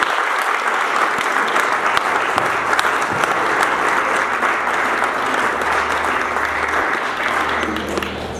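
Audience applauding steadily, with a dense patter of many hands that thins a little near the end.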